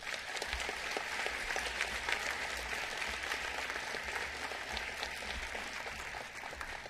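Audience applauding: many hands clapping together, starting at once and thinning out near the end.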